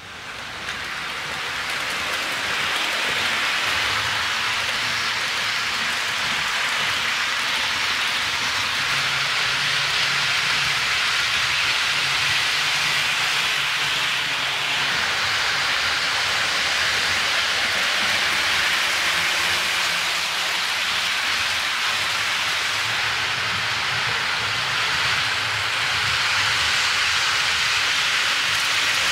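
HO-scale model trains running on sectional track: a steady, rain-like rolling hiss of metal wheels on rail. It fades in over the first couple of seconds.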